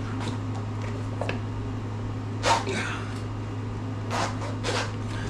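Short scuffing, breathy strokes, three of them in the second half, as a Maxxis mountain bike tire is worked onto its rim by hand. A steady low hum runs underneath.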